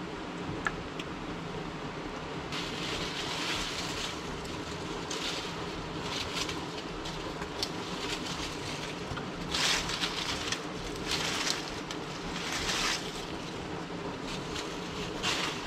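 Dry branches and dead leaves rustling and crackling in a string of short bursts as they are gathered and handled. Under them runs the steady rush of a stream.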